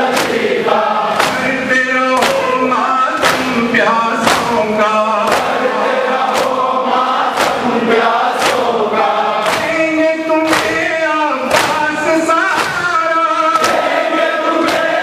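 A noha, a Shia lament, led by a man's voice on a microphone, with a group of boys and men chanting along. Sharp rhythmic slaps of chest-beating (matam) keep time about twice a second.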